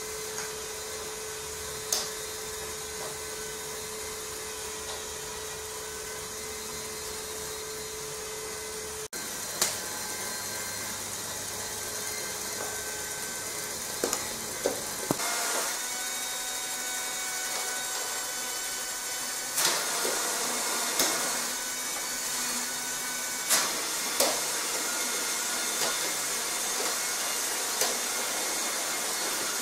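Meccano model crawler tractor running: the steady whir of its small electric motor and geartrain, changing abruptly about nine seconds in, with a scattering of sharp clicks.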